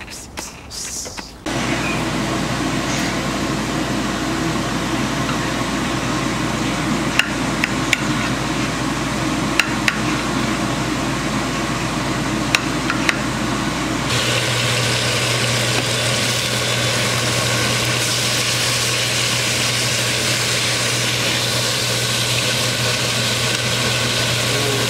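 A knife slicing a tomato against a plate, with a few sharp clicks over a steady background noise. About halfway through this gives way to meat patties sizzling in a frying pan, a steady hiss over a low hum.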